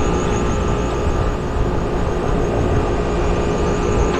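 Trane rooftop unit's compressor running with a steady hum, just started after the unit's broken high-pressure switch was bypassed.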